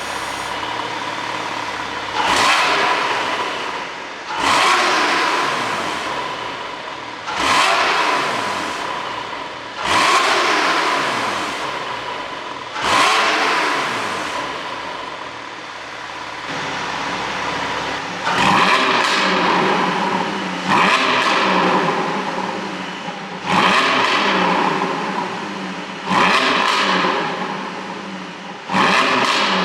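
Porsche 718 Boxster GTS 4.0's flat-six engine, with a pop-and-crackle ECU tune, blipped about ten times from idle. Each sharp rev falls back toward idle over a couple of seconds, with a steady idle in between.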